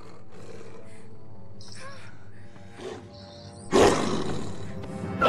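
Film soundtrack: orchestral score on held notes, then about three and a half seconds in a sudden loud werewolf roar over the music.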